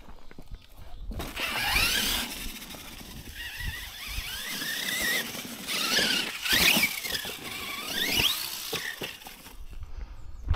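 Losi LMT Grave Digger electric RC monster truck driven hard. Its brushless motor and gears whine, rising and falling in pitch with the throttle, over a broad rush of noise. The run starts about a second in and stops near the end.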